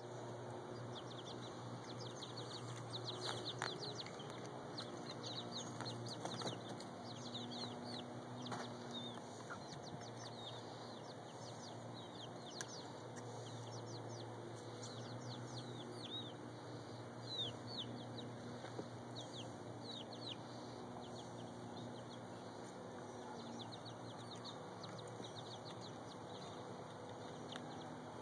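Four-to-five-week-old chicks peeping: many short, high, falling chirps, busiest in the first two-thirds and thinning out near the end, over a steady low hum.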